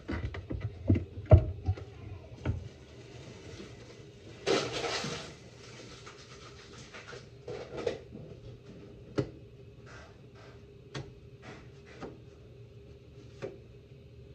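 Scattered knocks, taps and clicks of tortilla-making by hand, the tortilla press and comal being worked, louder in the first couple of seconds, with a short hiss about four and a half seconds in, over a faint steady hum.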